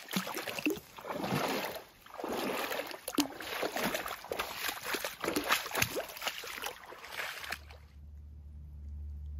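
Legs wading through deep swamp water, sloshing with each stride at about one surge a second. Near the end the sloshing stops and a low steady hum is left.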